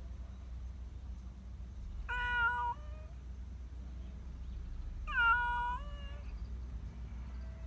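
Black Persian cat meowing twice, a few seconds apart, each meow under a second long. These are the attention-seeking meows of a cat that wants to be petted.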